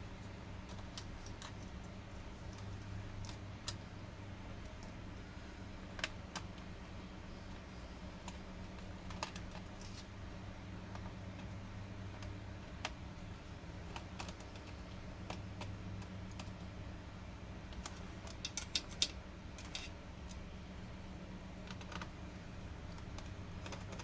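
Scattered light clicks and taps at irregular intervals, from a laptop's plastic casing and parts being handled and worked loose during disassembly, over a steady low hum. A quick run of clicks comes near the end.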